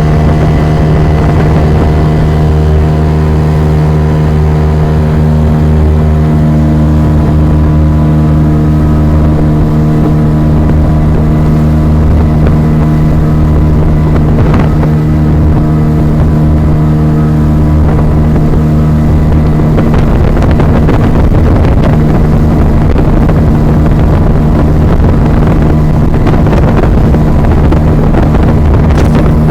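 Motorboat engine running loud and steady at a constant speed. In the last third a rushing noise of wind and water joins in.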